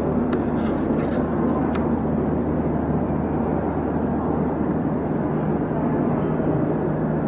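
Steady low rumbling ambience of a large train station concourse, with a faint low hum and a few faint clicks in the first two seconds.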